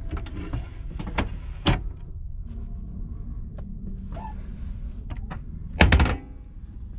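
A seat-back tray table on a TGV Duplex folded up and clicked shut with a few sharp knocks, then a heavier double thunk about six seconds in as the metal footrest is moved under a foot, over the train's steady low rumble.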